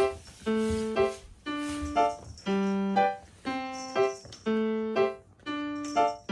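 Background piano music: a simple melody of single notes struck about twice a second, each ringing and fading.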